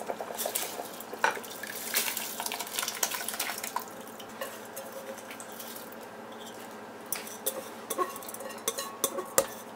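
Soaked seeraga samba rice poured from a steel bowl into a pot of boiling water, with the grains rattling off the bowl and the bowl clinking against the pot, dense clicks over the first four seconds. Then a softer steady bubbling from the boiling water, with a few more clinks near the end.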